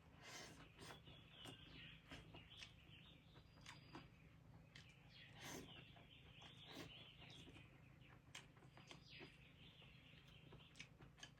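Near silence: faint outdoor room tone with birds chirping now and then and scattered faint clicks over a low steady hum.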